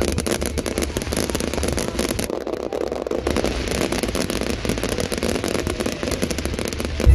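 Fireworks crackling: a dense, continuous rattle of many small rapid pops at a steady level.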